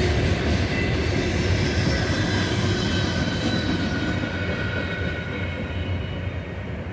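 Local freight train rolling past on the rails: a steady rumble of wheels with a low drone, slowly fading away.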